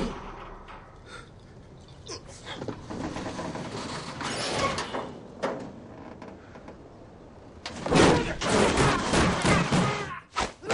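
A garage door being lifted by hand and rolling up on its tracks, loudest from about eight seconds in.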